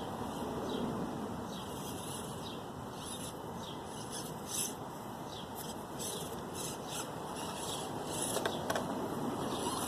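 Axial SCX24 micro RC crawler driving over rough ground, its tyres and chassis scraping and rubbing steadily, with a few short clicks about eight and a half seconds in.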